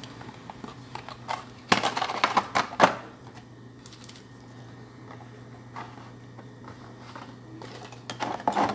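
Cardboard box and plastic packaging of a diecast airliner model being opened by hand: scattered clicks, then a burst of crackly rustling and snapping over about a second, followed by a few soft ticks. A steady low hum runs underneath.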